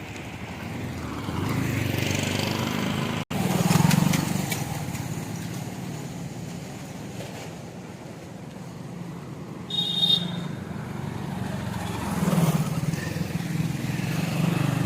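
Road traffic: motor vehicles passing on a nearby road, their engine noise swelling and fading several times, with a brief high-pitched beep about ten seconds in.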